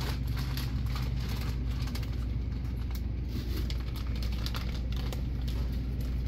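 Irregular light tapping of footsteps on a tile floor over a steady low hum.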